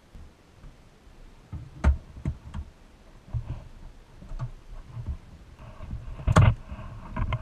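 Knocks and light clicks from the pressed-steel body of a Tonka toy fire truck being handled and its cab fitted onto the chassis: a sharp knock about two seconds in, a few small ticks, and a louder knock near the end.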